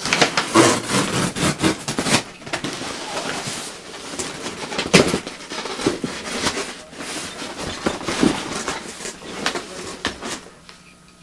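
Cardboard shipping box being torn open by hand: packing tape ripping along the seam and cardboard flaps scraping and crinkling, in irregular tears and rustles that die away shortly before the end.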